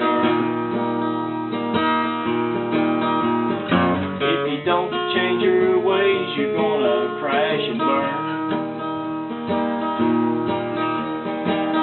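Acoustic guitar strummed in a blues song, playing between sung lines with no voice.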